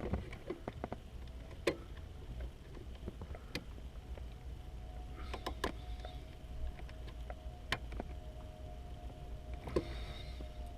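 Scattered small clicks and knocks of a plastic brake light switch being handled and fitted into its bracket under a car's dashboard, over a low steady hum.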